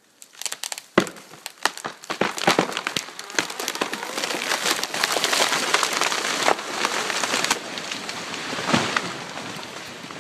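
Tree falling after the felling cut: a run of sharp wood cracks, then a long crashing rush of breaking branches and foliage that eases near the end.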